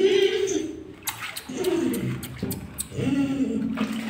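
A trapped dog whining in drawn-out, falling cries, three or four times, from a water-filled pit. In the middle come a few sharp clicks or splashes of the water.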